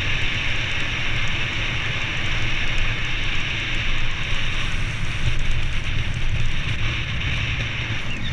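Steady wind rush and tyre noise from a mountain bike riding along a paved road, picked up by a bike-mounted action camera, with a low rumble under a constant hiss.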